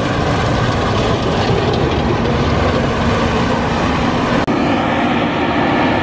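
New Holland track combine harvesting wheat, heard close: the steady, even running of its engine and threshing machinery as the header cuts standing wheat, with one faint tick about four and a half seconds in.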